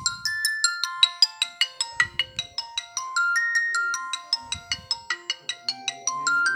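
Alcatel OT-3026X mobile phone ringtone: a fast synthesized melody of short, quick notes, about five a second, over held tones, with a low drum hit at the start, another about two seconds in and another near four and a half seconds in.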